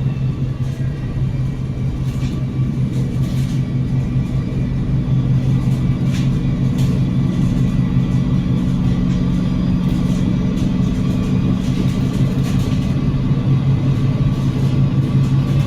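Cummins L9 diesel engine of a double-decker bus with a Voith automatic gearbox, heard from on board, running with a steady low hum. It grows louder over the first few seconds and then holds even, with occasional light clicks and rattles from the body.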